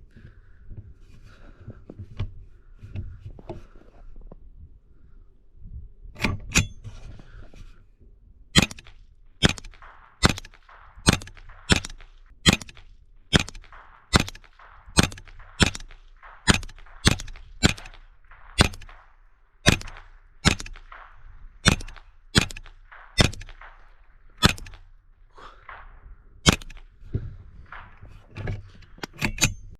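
.22 LR rifle shots fired at a steady, quick pace, about twenty in a row at roughly one shot every 0.8 seconds, with a few more shots near the end and lower handling clatter before the string begins.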